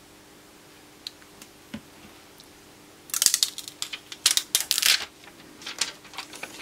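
Thin plastic protective film being peeled off a phone's new screen, crackling in a dense run of sharp crinkles for about two seconds from the middle, then a few quieter crinkles. A few faint clicks come before it.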